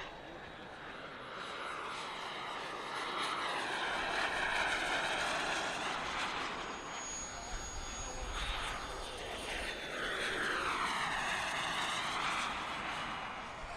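Radio-controlled scale business-jet model's turbine engine running in flight, a steady whine and rush that swells as the jet passes, twice, with its pitch bending up and down on each pass.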